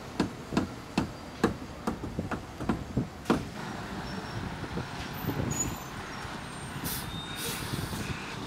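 A series of sharp knocks, about two to three a second, for the first three seconds. Then a ready-mix concrete mixer truck runs past, its diesel engine rumbling steadily, with a short hiss of air about seven seconds in.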